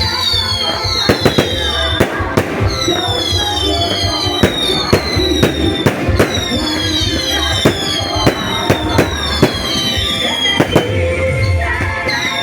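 Fireworks going off in quick succession: many sharp bangs and pops, with high whistles falling in pitch over and over, and music playing underneath.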